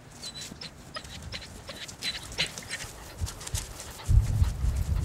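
A dog running across grass close to the microphone, its breathing and movements making short clicks and a few brief squeaks. About four seconds in, a loud low rumble of thuds starts as it reaches the microphone.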